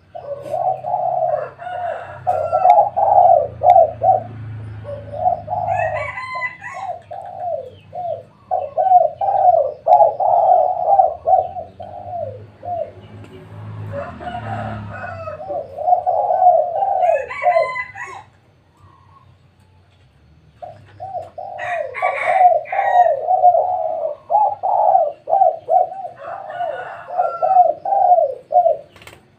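Several spotted doves cooing over one another in long runs of quick, rolling coos, with a pause of about two seconds about two-thirds of the way through.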